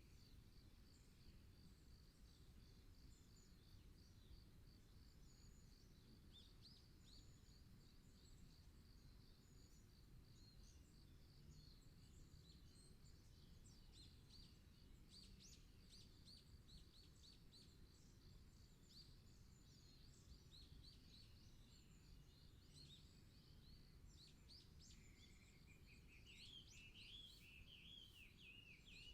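Faint woodland birdsong: several birds chirping and twittering, with a steady high trill through the first half and a louder warbling song near the end, over a low steady background rumble.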